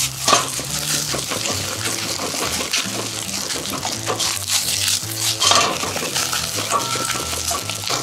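A utensil scraping and knocking in a frying pan as egg-coated rice is stir-fried and broken up, with the food sizzling. Background music with held bass notes plays underneath.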